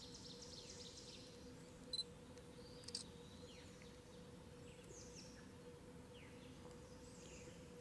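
Near silence: faint distant birds chirping in short falling calls over a steady faint hum, with two brief clicks about two and three seconds in.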